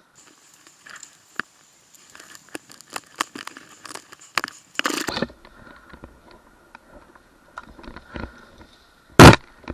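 Scattered clicks and rustling, then about nine seconds in a single sudden, very loud bang.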